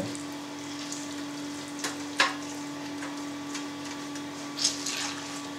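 Soft crumbly rustling of drained cheese curd being handled and dropped into a plastic ventilation-pipe cheese mould, with a few light taps around two seconds in and a short crackle near the end. A steady low hum runs underneath.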